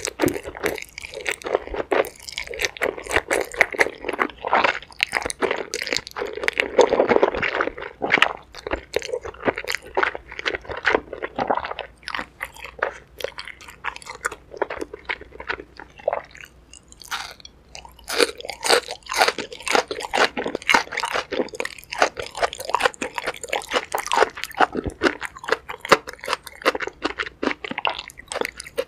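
Close-miked eating: a person chewing and slurping thick black bean noodles, with wet mouth sounds and crunching bites. The sounds thin out for a few seconds in the middle before the chewing picks up again.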